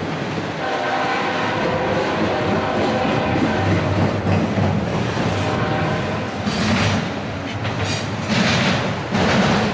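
Freight train of autorack cars rolling past at close range: steel wheels rumbling and clattering on the rails, with a steady ringing multi-note tone over the first six seconds and louder surges of clatter near the end as more cars pass.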